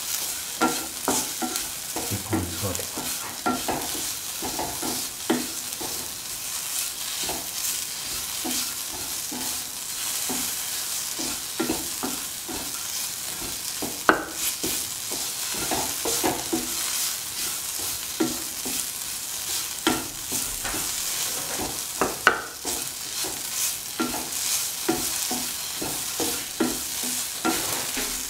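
Shallots and red chillies sizzling as they fry in hot oil in a pan, with a utensil stirring and scraping them around in frequent short strokes. There are two sharper knocks of the utensil against the pan, about halfway through and again near three-quarters of the way.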